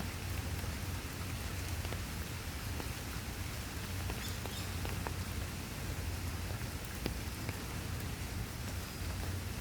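Steady rain falling, an even hiss with scattered single drops ticking against a surface.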